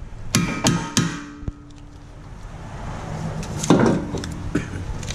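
Hammer blows on a hand impact driver set in one of the Phillips screws that hold the brake rotor to the hub, struck to break the screw loose; each strike rings metallically. Three quick strikes come in the first second, then after a pause one heavier blow and two lighter ones.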